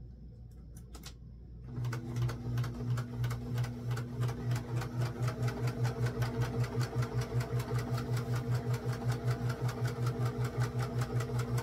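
A few light clicks, then about two seconds in an electric sewing machine starts and runs steadily, sewing a straight seam with a rapid, even stitching rhythm.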